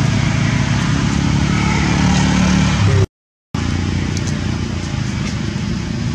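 A steady low engine-like rumble, the kind of sound motor traffic makes, broken by a sudden half-second gap of silence about halfway through.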